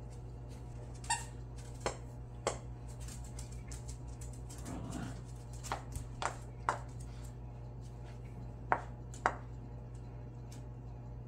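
Two small dogs scuffling over plush toys on a laminate floor: about nine sharp clicks and knocks scattered through, the first with a brief ringing ping, over a steady low hum.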